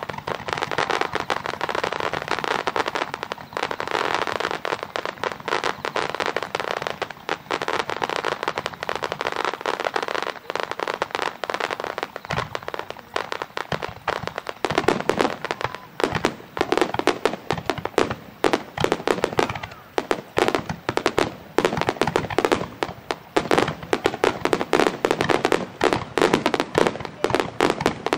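Fireworks barrage: dense, continuous crackling and popping from many small shells and ground fountains going off together. From about halfway through it turns louder, with more distinct bangs standing out of the crackle.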